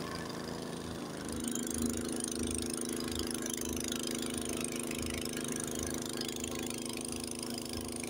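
Honda HS80 tracked snowblower's single-cylinder engine running steadily as the machine works through deep snow. A bit over a second in, the engine hum grows stronger and then holds steady.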